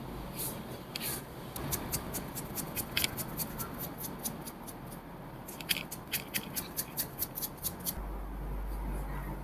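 A rapid, even series of sharp, crisp clicks, about five a second, in two runs with a short break between them.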